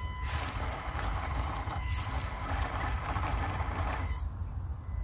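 Panda Hobby Tetra K1 1/18-scale RC crawler driving up a steep, wet, slippery incline: its small 180 brushed motor and gears run under throttle while the tyres scrabble on gravel and leaves, and the driving noise stops about four seconds in. A steady low rumble sits underneath.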